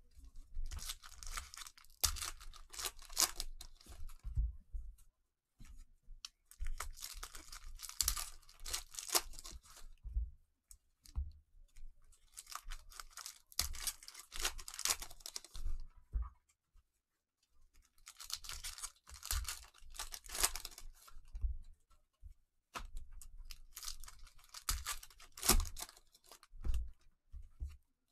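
Cellophane trading-card pack wrappers being ripped open and crinkled by hand, in five bouts of a few seconds each with short pauses between, with scattered dull bumps.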